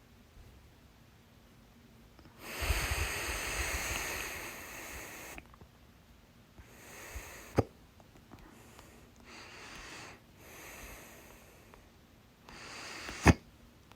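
A woman hiccuping twice, with breathing in between. Each hiccup is a short breath cut off by a sharp click, once about seven and a half seconds in and once, louder, near the end. A long noisy breath comes about three seconds in.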